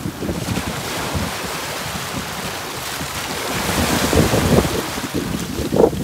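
Small waves washing in over a pebble shore, a continuous foamy rush that swells louder past the middle, with a brief louder surge near the end.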